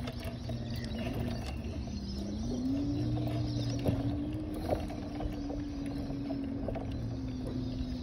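A steady engine drone whose pitch dips about two seconds in, then rises and holds a little higher, over a low rumble and a few faint clicks.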